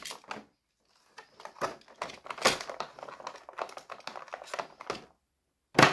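Irregular clicking and crackling of a utility knife working against a clear plastic blister tray as the fastenings holding an action figure's limbs are cut. There is a sharp, louder click near the end.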